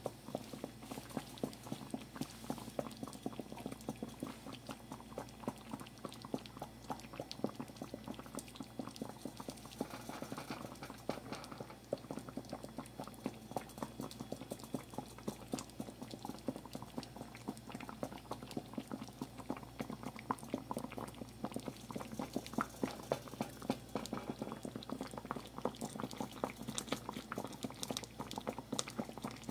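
Thick onion and bell pepper gravy simmering around cube steaks in a pan, bubbling with a steady stream of small pops.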